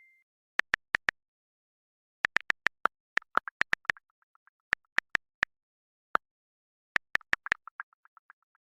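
A series of sharp, dry clicks in irregular clusters, a few of them trailing off into fainter, quickening ticks.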